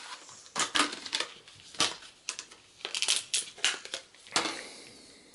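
Handling noise as computer parts are picked up and moved: a string of irregular clicks, taps and rustles.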